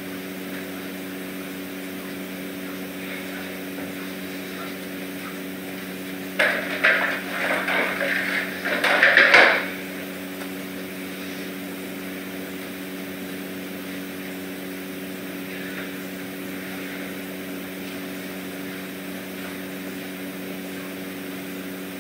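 Steady low hum, with a few seconds of clattering and hard knocks about six seconds in as plastic cat toys are handled and set down on the floor.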